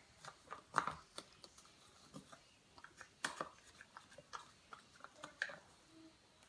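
A dog eating ice cream: faint, irregular chewing and mouth clicks, with louder snaps about a second in and about three seconds in.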